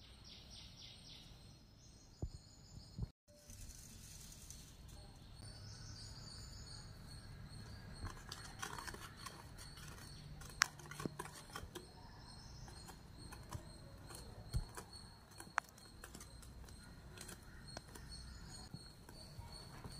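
Faint kitchen sounds of wheat flour being sifted through a mesh sieve into a stainless steel bowl, then a wire whisk stirring the flour and carrot batter, with scattered light ticks of the whisk against the bowl. The sound breaks off about three seconds in.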